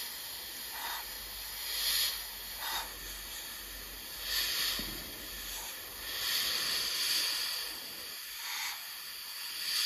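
Airbrush hissing in short spurts as the trigger is pressed and released, spraying thinned green paint in camouflage stripes. There are several spurts, the longest about six seconds in.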